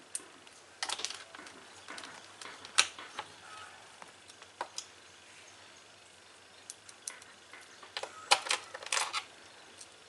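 Small screwdriver and screws clicking and tapping on a laptop's plastic bottom cover as its screws are fastened. The clicks come in scattered bunches: a bunch about a second in, single sharp clicks in the middle, and a thicker bunch near the end.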